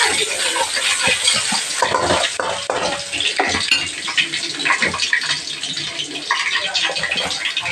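Hot oil sizzling and crackling in a kadai as a ground paste of cinnamon, cloves and fennel fries in it. The sound is a steady loud hiss dotted with many small pops.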